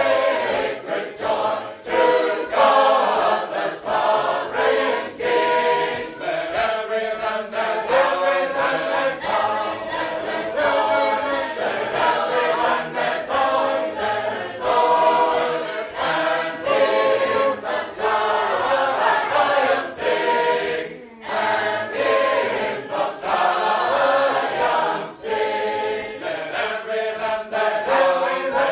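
A Sacred Harp (shape-note) singing group singing a hymn tune in four parts, a cappella and full-voiced, with one short break about three-quarters of the way through.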